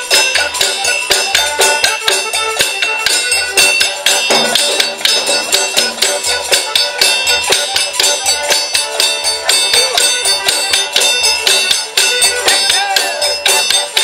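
Rodriguan folk band playing: a diatonic button accordion carries the tune over a steady low beat on a large frame drum, with shakers and small hand percussion rattling in a fast, regular rhythm.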